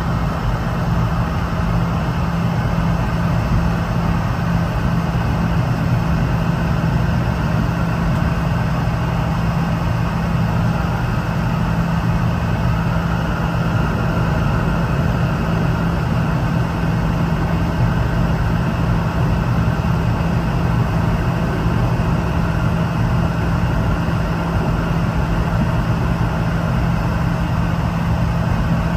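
Steady cabin noise inside a Boeing 717-200: an even rush of air with a constant low hum, no change in level.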